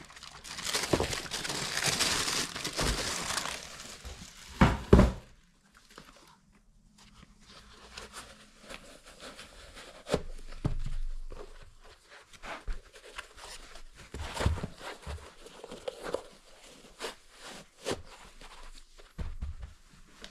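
Wrapping crinkling and rustling as a new pair of running shoes is unboxed, loudest in the first few seconds. Two sharp knocks come about five seconds in, followed by softer, scattered rustles and taps.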